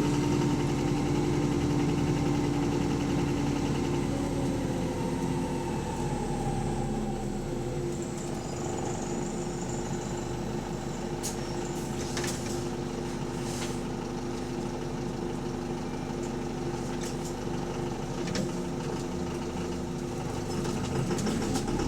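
Bus engine with a knock that is taken for rod knock. It winds down over the first several seconds, runs low and steady through the middle with a few sharp clicks, and starts to rise again near the end.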